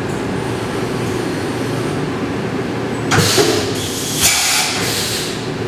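CNC vertical machining center running with flood coolant spraying and splashing against the enclosure window during milling. It is a steady mechanical run at first; from about halfway in, loud hissing surges of spray come and go.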